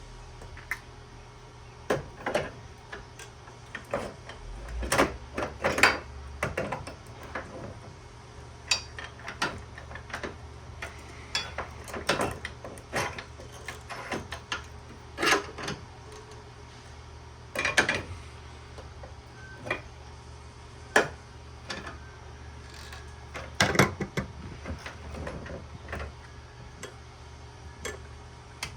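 Irregular metallic clinks, knocks and rattles of hand tools and brass furnace burner fittings being worked loose and handled at a vise, with a low steady hum behind.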